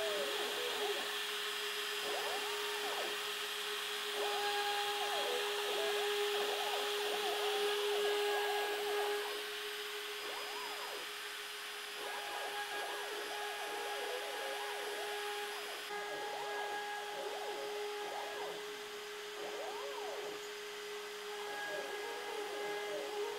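CNC router engraving a logo into an oak board with a 45-degree V-bit: the Kress router spindle runs with a steady high whine, while the axis motors give warbling tones that rise and fall in pitch as the bit traces the design.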